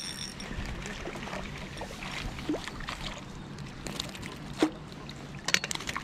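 Water trickling, with several short drip-like plinks and a few sharp clicks, the loudest a quick run of clicks near the end.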